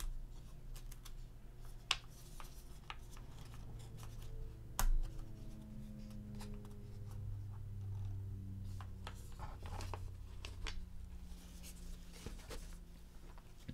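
Handling noise from unboxing: scattered light clicks, scrapes and rustles of a card sleeve and a thin earbud cord as a mono earbud is worked out of its slot, with one dull thump about five seconds in.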